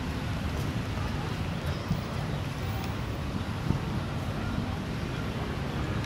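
Steady low rumble of wind on the microphone over outdoor ambience, with a couple of faint knocks.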